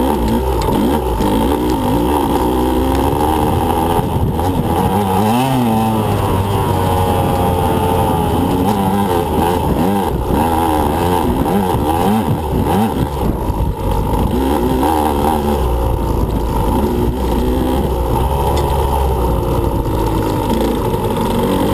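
2015 Husqvarna TE125 two-stroke dirt bike engine revving up and down constantly as the throttle is worked through off-road riding, the pitch rising and falling every second or so.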